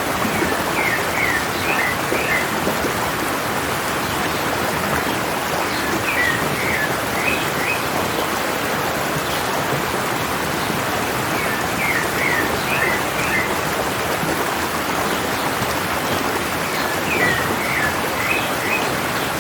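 Stream water rushing steadily, with a bird singing a short phrase of quick chirps four times, about every six seconds.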